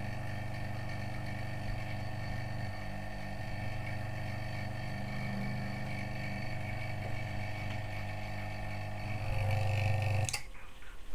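Electric vacuum pump running with a steady hum while it pumps down a vacuum chamber. It gets louder shortly before it is switched off with a click about ten seconds in, and the hum cuts off suddenly.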